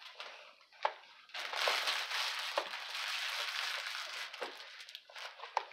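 Clear plastic toy packaging crinkling as it is handled: a few sharp clicks, then a dense rustle lasting about three seconds, then a few more clicks near the end.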